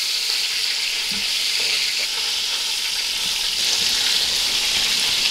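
Pieces of beef rib searing in hot oil in a pot, with a steady sizzle, as they are turned with tongs.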